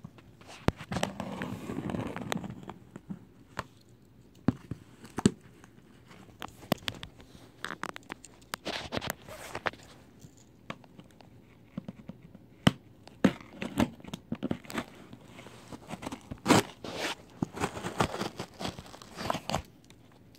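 Cardboard shipping box being cut and torn open by hand with a multi-tool blade: packing tape and cardboard tearing and crinkling, with many short sharp cracks and scrapes.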